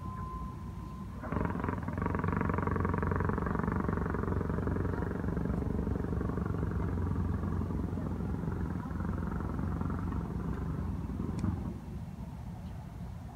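An engine running at a steady pitch. It starts abruptly about a second in and drops away shortly before the end.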